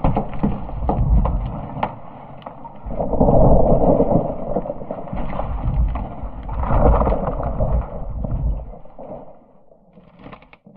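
Iceberg breaking up: a deep rumble of collapsing ice shot through with sharp cracks and crackling. It swells twice, about three and seven seconds in, then dies away near the end.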